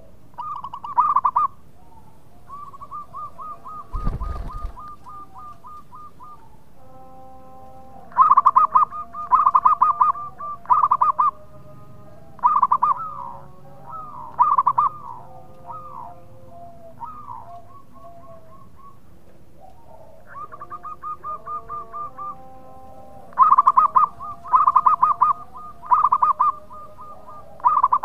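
Zebra dove (perkutut) singing: repeated phrases of rapid, staccato cooing notes, some loud and some softer, with fainter lower-pitched calls behind. A single thump about four seconds in.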